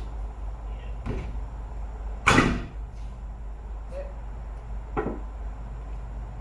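Three hammer blows against a car tire to knock a stuck wheel off its hub: a lighter hit about a second in, a much harder one a little later with a brief ring, and a third near the end.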